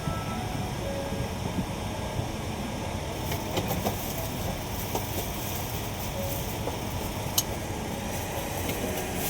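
Steady low rumble of an airliner cabin, with a few light clicks and knocks a few seconds in and one sharp click near the end.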